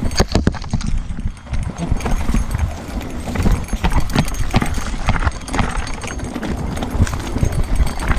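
Mountain bike rolling fast down a rocky trail: tyres crunching over loose stones and the bike clattering with many quick, irregular knocks as it hits rocks, over a steady low rumble.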